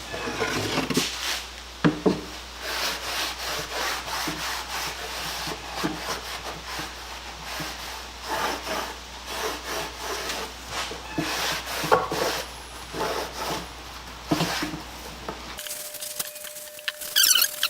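A damp rag scrubbing and wiping wooden toolbox parts with soapy water, in repeated uneven back-and-forth strokes. Near the end the rubbing stops and there is a brief clatter.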